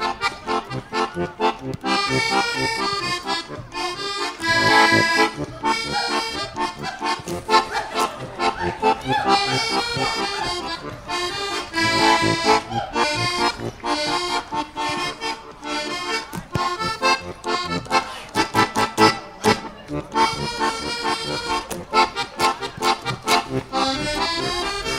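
Accordion-led music with a steady beat, purely instrumental with no singing.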